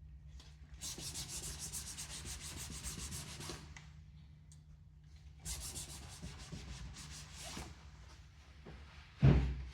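A solvent-dampened cloth wiped briskly over glued PVC registration lettering and masking tape on an inflatable boat's PVC tube, in two spells of quick rubbing strokes. A loud thump near the end.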